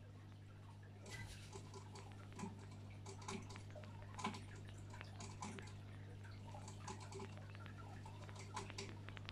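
Aquarium equipment humming steadily, with irregular small water drips and clicks starting about a second in.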